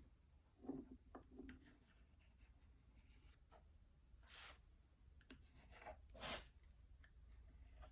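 Faint pencil strokes on wood: a few short, scattered scratches, retracing a layout line, over a low steady hum.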